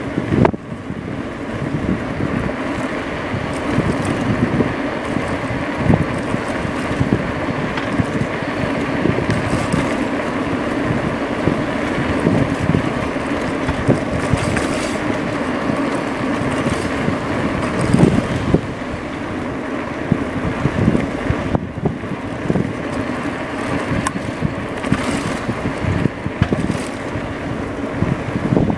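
A2B Metro electric bike riding along a street: wind buffeting the microphone over a steady rumble of the ride, with small irregular bumps.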